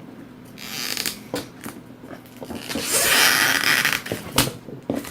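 Cellophane shrink-wrap on a card game box crinkling and rustling as it is picked at and torn off, with small clicks and scratches. There is a short rustle about a second in and a louder, longer crackling tear about three seconds in.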